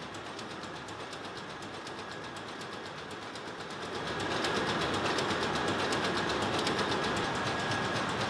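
Running diesel machinery in a ship's engine room: a steady mechanical din with a fast, even clatter and a thin steady whine, louder from about four seconds in.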